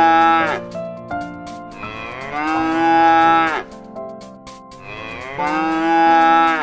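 Cow mooing: the end of one moo about half a second in, then two more long moos about three seconds apart, each rising slightly in pitch and dropping off at the end.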